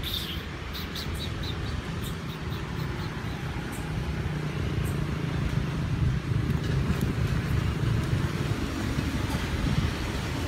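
A steady low rumble, with a few faint short clicks in the first few seconds.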